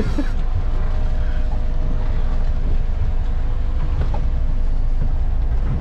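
Small fishing boat's engine running under way, heard from inside the wheelhouse as a steady low rumble.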